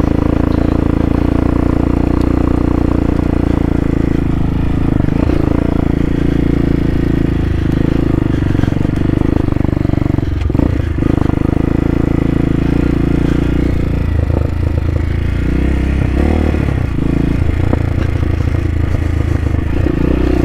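CSC TT250 dual-sport motorcycle's engine running steadily under way on a dirt track, its note easing off and picking back up a few times as the throttle changes, with a few short rattles from bumps.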